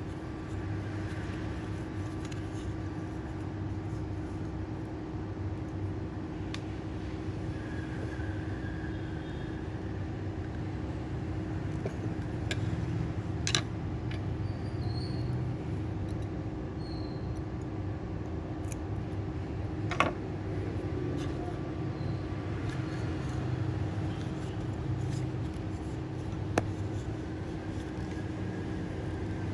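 Steady low background hum, with three sharp clicks from handling a fishing hook held in a vise and braided line.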